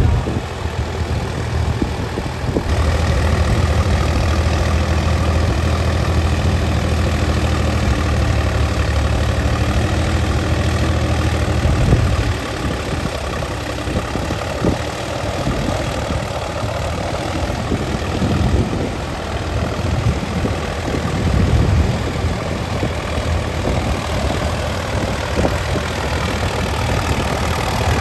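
Tractor engine running, steady for about the first twelve seconds, then uneven, with the level rising and falling.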